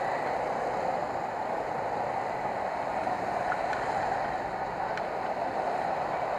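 Steady rushing wind and road noise buffeting an action camera while riding, an even hiss with no breaks.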